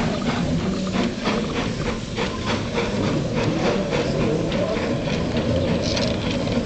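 Small steam locomotive running under way, its exhaust chuffing in even beats of about three to four a second over a steady rumble of the running gear.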